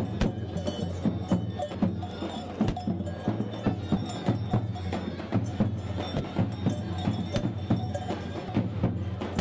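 Music: a steady low drone under a rapid, uneven run of sharp percussion strikes.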